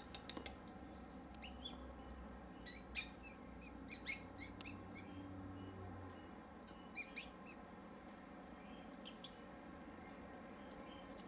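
Turquoise parrot (Turquoisine parakeet) giving short, high chirps in several quick runs, with quiet gaps between them.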